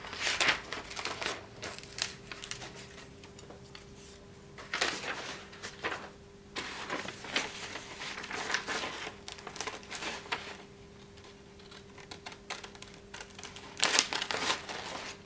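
Large steel scissors cutting through a sheet of paper: runs of crisp snips and paper rustling with short pauses between them, the loudest run near the end. A faint steady hum sits underneath.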